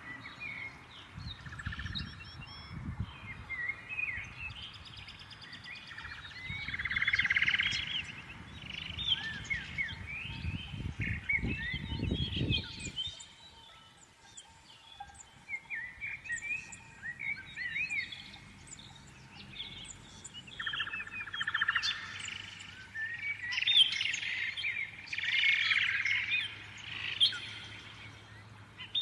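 Several small birds chirping and singing, their quick calls overlapping throughout. A low rumble sits under them for roughly the first half.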